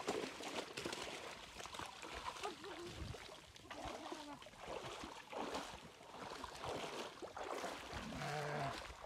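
Water sloshing and splashing in a shallow pond as people wade and move their hands and a bowl through it.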